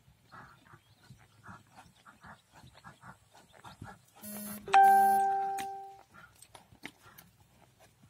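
Horse's hooves beating steadily on arena sand, with a short buzz about halfway through and then a single loud bell-like chime that rings out and fades over about a second.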